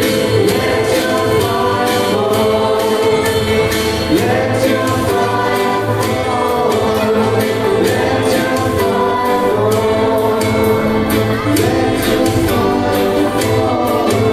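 Choir-sung Christian gospel song with a steady beat.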